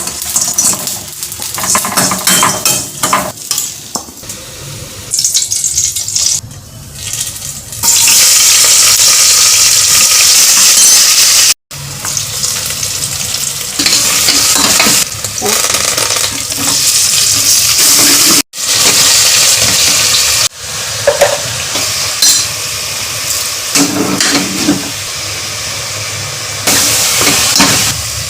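Food frying in a pan, with a steady sizzle that is loudest about a third of the way through, and a spoon stirring and clinking against the pan. It comes in several short pieces that cut off suddenly.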